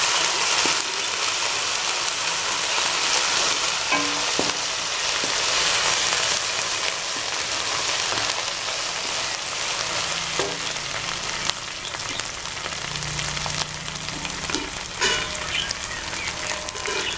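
Onions and a freshly added ginger, garlic and green chilli paste sizzling in hot oil in a metal kadhai, the sizzle easing a little in the second half. A wooden spatula stirs through it, scraping and tapping against the pan now and then.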